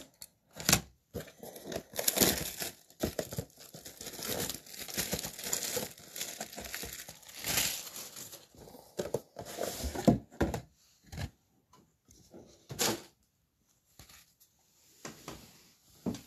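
Plastic wrapping on a box of Donruss football trading cards being torn and crumpled, crinkling in irregular bursts for about ten seconds, then a few scattered clicks and one sharp tap.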